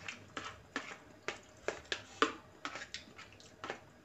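Metal spoon clicking and scraping against a plastic bowl while scooping up fried noodles: a long run of sharp clicks at an irregular pace.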